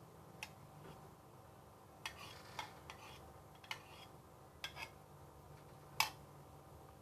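Kitchen utensils clinking against dishes: about eight sharp, irregular clinks, the loudest about six seconds in.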